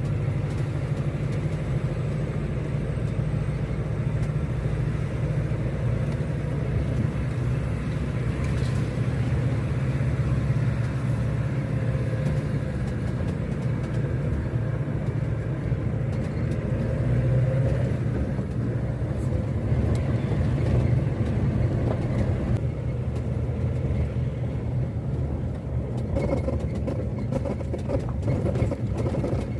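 A 4x4 driving off-road: a steady low engine and tyre rumble, with scattered short knocks and rattles.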